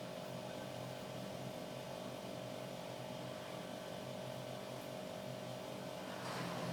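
Faint, steady background hum with one thin steady tone through it. About six seconds in, a louder rushing noise comes in.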